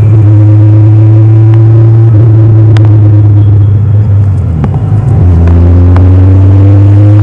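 Kawasaki Ninja 1000's stock inline-four engine and exhaust running steadily under way. About five seconds in the note wavers and drops briefly, then settles lower and rises slowly.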